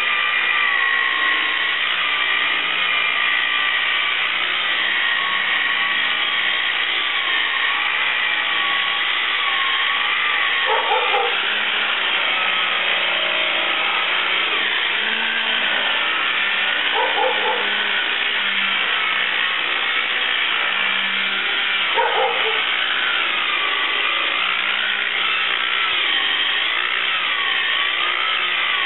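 Electric rotary buffer (a Harbor Freight polisher) running with a wool pad against fiberglass gel coat, its motor whine steady in level but wavering in pitch. Three short pitched sounds stand out over it, a few seconds apart.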